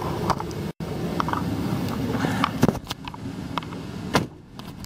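Steady hum of a Ford E350 van's air-conditioning blower, with scattered knocks and clicks of handling in the rear cabin. The hum drops after about three seconds, and there is a louder thump a little past four seconds.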